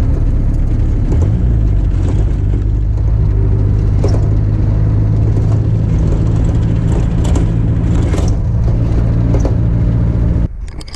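Old car's engine and road noise heard from inside the cabin, a loud steady low drone with a few knocks and rattles. It cuts off near the end.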